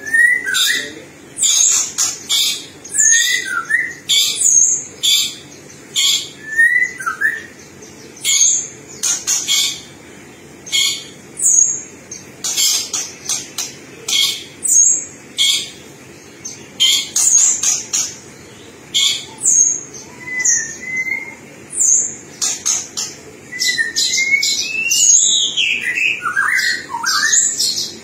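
White-rumped shama (murai batu) singing: a fast run of short, sharp, high-pitched notes, broken by brief whistled slurs, with a cluster of falling whistles near the end.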